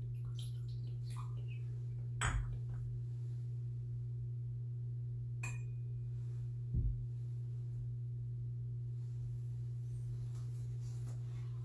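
Clinks and knocks of altar vessels being handled as the chalice is prepared with wine and water, one clink about halfway through ringing briefly, over a steady low hum.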